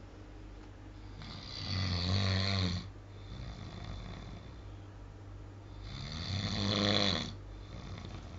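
A sleeping man snoring loudly: two long snores about four and a half seconds apart, each swelling up for a second or so and then cutting off, with quieter breathing between.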